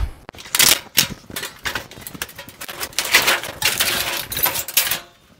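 Sheet-metal clatter and scraping from a Kenmore top-load washer as its top panel is worked loose and raised open: a quick run of irregular rattles and knocks that stops just before the end.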